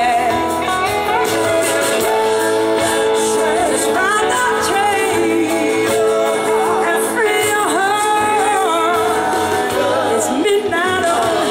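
Live band playing a slow soul-blues song: a woman's voice singing long, bending notes over electric guitars and drums, as heard from the audience at an outdoor stage.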